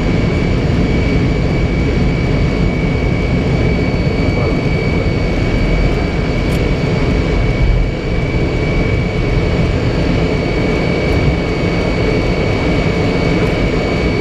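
Soloviev D-30KP turbofan engines of an Ilyushin Il-76 at takeoff power in the climb-out: a loud, steady rumble with a high, steady whine on top.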